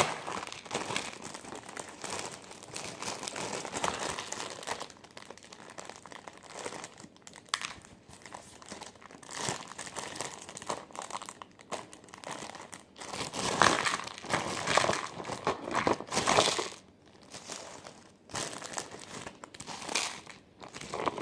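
Crinkly plastic instant-ramen wrapper being handled and opened, rustling in irregular spells with short pauses, with the odd crunch of the dry crushed noodles.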